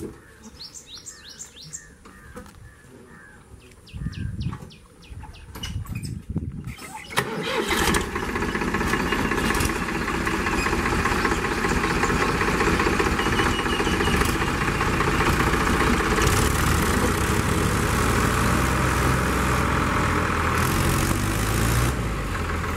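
A diesel tractor engine starts about seven seconds in and keeps running loudly. Before it starts, a bird chirps a few times.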